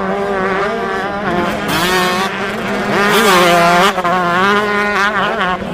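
Dirt bike engine revving up and down several times, its pitch rising and falling.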